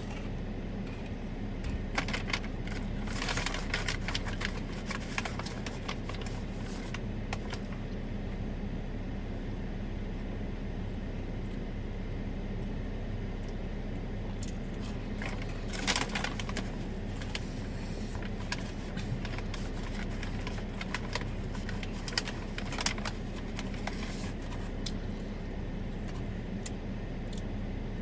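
Steady low hum and rumble heard from inside a stationary car, with scattered bursts of light clicking and rattling, the busiest a few seconds in and again about halfway through.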